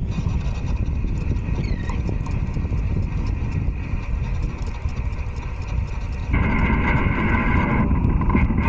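Wind rumbling on an action-camera microphone over open water. About six seconds in, a steady whine made of several tones starts suddenly and the sound gets louder.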